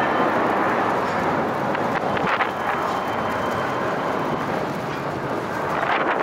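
Steady rushing roar of jet airliner engines.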